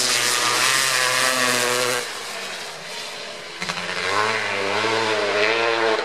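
1990 Kawasaki KX500's single-cylinder two-stroke engine running hard under throttle. It drops in loudness about two seconds in, then comes back louder from about four seconds in, its pitch wavering up and down.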